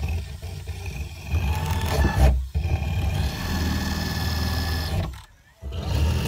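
Electric power saw cutting through the timber wall, running in bursts: it dips briefly about two and a half seconds in, stops for half a second near the end, then starts again.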